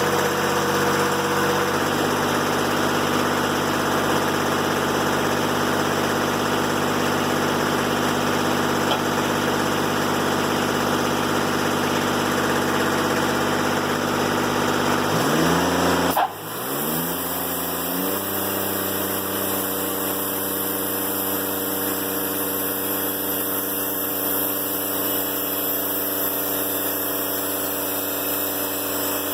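Diesel engine of a Timberking 1400 band sawmill running steadily under load, with the noise of the band blade cutting a poplar log. About sixteen seconds in the engine note dips, a sharp click sounds, and the note rises again. The engine then runs on at a steady, slightly quieter note, with less of the cutting hiss.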